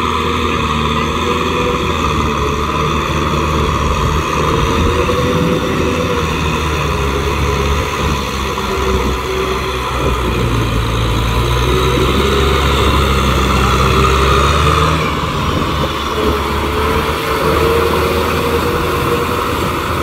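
Kubota M6040SU tractor's four-cylinder diesel engine running steadily under load as it drives a rear rotary tiller through wet paddy-field mud, close by.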